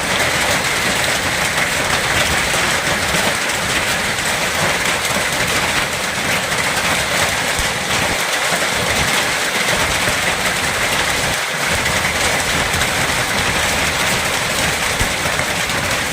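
Hailstorm: dense, steady pelting of hailstones and rain, a continuous loud clatter of countless small impacts.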